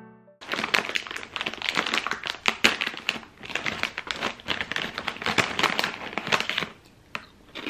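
Crinkly plastic snack bag of Calbee Shrimp Chips being handled, with a hand rustling about inside it. The crinkling goes on steadily and stops about a second before the end.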